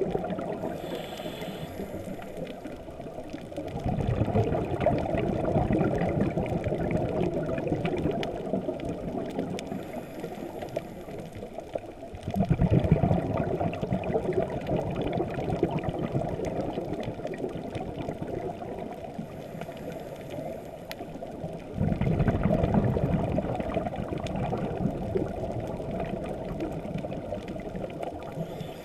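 Underwater breathing of a scuba diver, muffled. A short faint hiss of an inhale through the regulator is followed a few seconds later by a deep rush of exhaled bubbles that starts suddenly and fades out, with the cycle repeating about every nine seconds over a constant watery rush.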